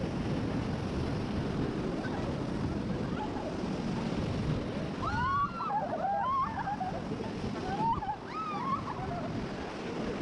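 River rapids rushing steadily around a raft, with high-pitched rising and falling shrieks from the rafters for a few seconds in the middle.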